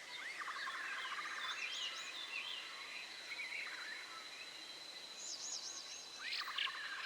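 Wild junglefowl (labuyo) calling: a rapid rattling call that starts with an upward sweep, heard twice about six seconds apart, over chirps of other small birds and a steady high tone.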